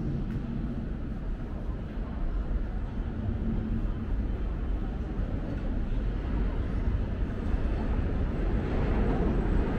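Subway station ambience: a steady low rumble with a hiss above it, growing louder over the last couple of seconds.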